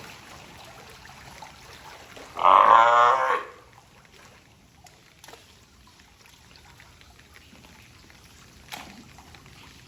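California sea lion giving one loud, harsh, bellowing call about a second long, a couple of seconds in.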